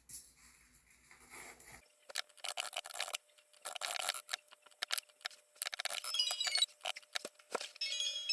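Quick, light clinking and rattling of small hard objects. Bell-like music starts near the end.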